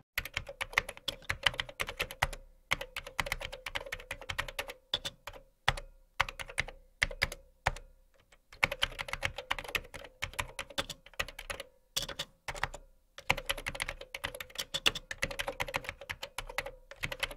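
Computer keyboard typing sound effect: quick, irregular key clicks in runs, broken by short pauses.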